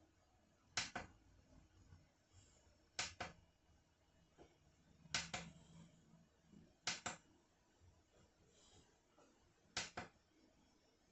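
Five sharp double clicks, two to three seconds apart, from buttons being pressed on a sunrise alarm clock.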